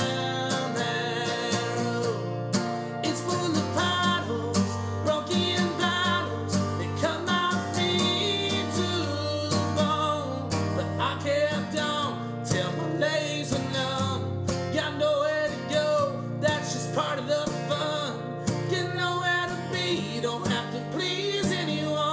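Alt-folk song with a strummed acoustic guitar, played steadily throughout.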